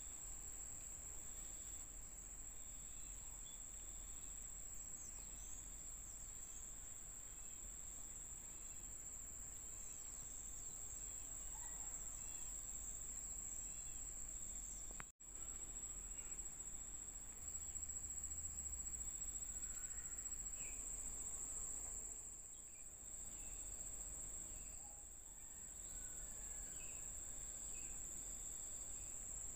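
Steady high-pitched drone of insects, with a few faint chirps scattered through it. The sound cuts out for an instant about halfway through.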